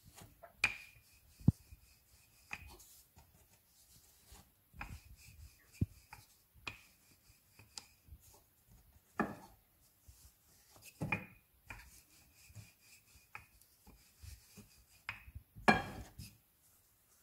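Wooden rolling pin rolling out a stuffed paratha on a floured countertop: short rubbing strokes and irregular knocks of the pin against the counter, the loudest knock near the end.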